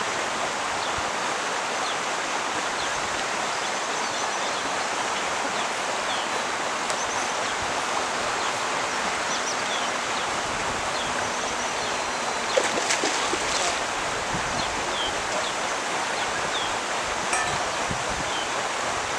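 Steady outdoor rushing noise like running water, with faint short bird chirps scattered through it and a brief clatter of clicks a little past the middle.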